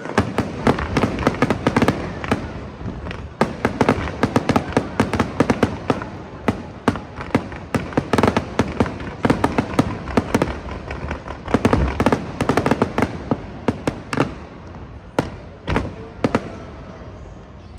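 Fireworks display: many sharp bangs and crackles in dense volleys, thinning to scattered reports near the end.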